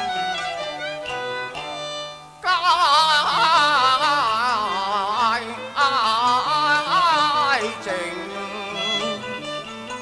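Cantonese opera song music: the accompanying ensemble plays, and about two and a half seconds in a loud high melodic line with wide, fast vibrato enters, breaks off briefly near the middle, and fades back under the ensemble about eight seconds in.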